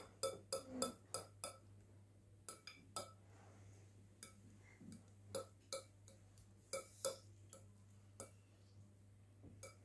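A metal fork tapping and scraping against the bowl as mayonnaise sauce is spread over a layer of salad: faint, irregular light clicks, over a low steady hum.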